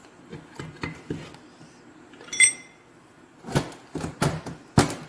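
Metal clicks and clinks as the rear shaft and its gear cluster are worked out of an Austin-Healey gearbox casing: a single ringing metallic ping about halfway through, then three louder clunks of metal on metal in the last second and a half.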